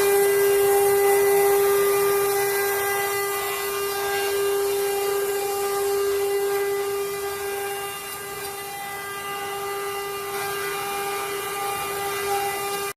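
CNC router spindle running with a steady high whine over a hiss as it carves wood.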